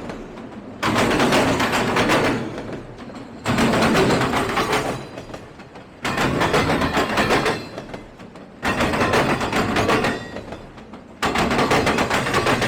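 Passing freight train, the wheels of each car clattering and banging over the track in loud bursts, about one every two and a half seconds.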